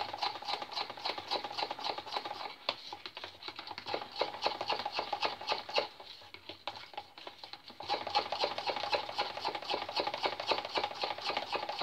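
A spoon beating pancake batter in a plastic measuring jug: quick, continuous clicking and tapping as the spoon knocks and scrapes round the sides of the jug.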